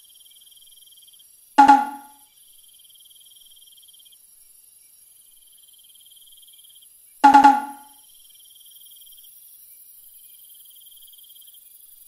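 A cricket chirping in high, even trills of a second or two with short gaps. Two loud, short percussive hits about six seconds apart stand out over it.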